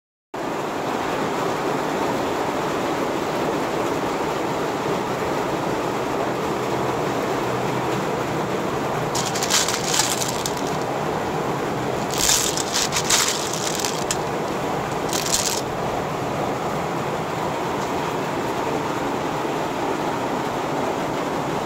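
Clams clattering against each other in a stainless-steel colander as a hand rubs through them, in short bursts about nine, twelve and fifteen seconds in, over a steady hiss.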